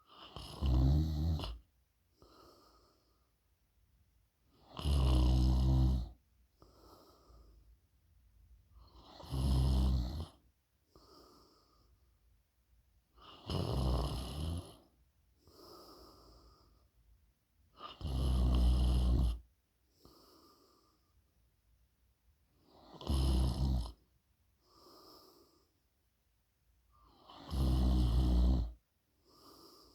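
A person snoring in deep sleep: seven loud, low snores at a steady pace of about one every four and a half seconds, each followed by a fainter, shorter breath.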